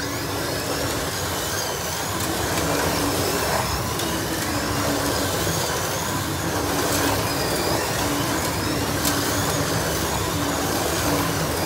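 Several 1/32-scale slot cars racing around a track: the steady whir of their small electric motors and pickups running along the slots. A high whine rises and falls every couple of seconds as the cars speed up and brake through each lap.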